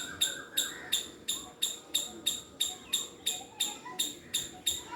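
A squirrel giving a rapid, evenly spaced alarm call, short high chirps repeating about three times a second, with fainter chirping underneath.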